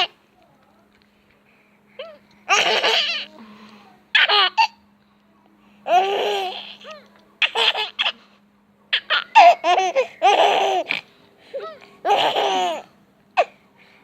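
Baby laughing in repeated fits of giggles and belly laughs, a burst every second or two with short pauses between.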